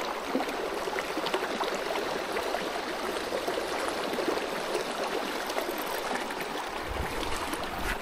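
Shallow creek running over rocks, a steady rush of water. A low rumble joins it about seven seconds in.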